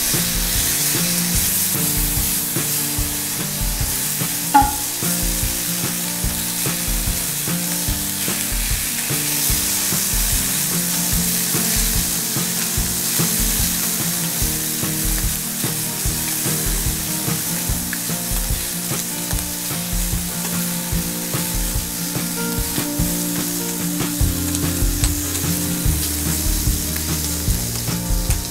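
Bacon sizzling steadily as it fries in a small frying pan, turned and stirred with chopsticks. A single sharp click stands out about four and a half seconds in.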